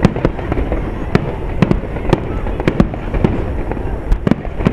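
Aerial firework shells bursting in quick succession: sharp bangs at irregular spacing, about three a second, over a continuous low rumble.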